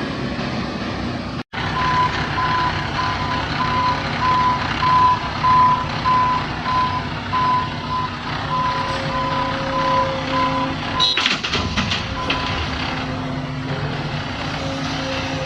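A heavy vehicle's reversing alarm beeping about twice a second over its running engine, stopping about two-thirds of the way through. A short burst of clanking follows.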